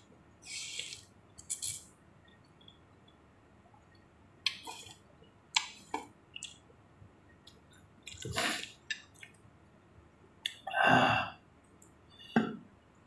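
Close-up eating sounds of chicken thukpa noodle soup: wet slurps and chewing in short separate bursts, the loudest near the end.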